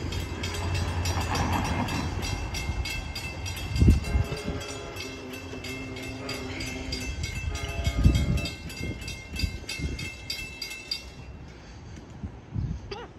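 Grade-crossing warning bell ringing in a quick, even rhythm, stopping about eleven seconds in. A distant train horn sounds in the middle, and there are a couple of low thumps.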